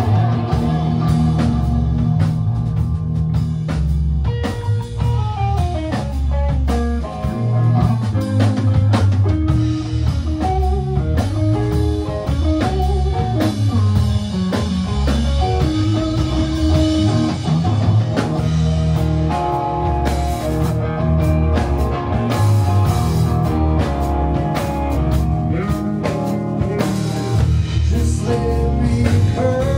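Swamp rock song played by a rock band: electric guitar over a driving drum kit.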